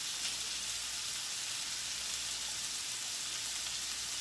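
Thin strips of meat sizzling steadily in a hot frying pan, a continuous even hiss.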